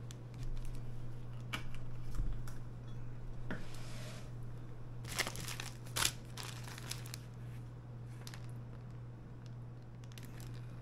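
Plastic zip-top bag crinkling and rustling as it is handled and opened, with a few sharp clicks, the loudest about six seconds in. A steady low electrical hum runs underneath.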